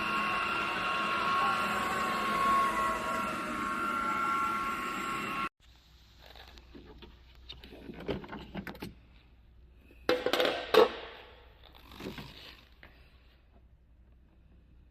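A small electric motor whining steadily over a rushing noise, which cuts off suddenly about five seconds in. Quiet clicks and knocks follow, with a louder clatter about ten seconds in.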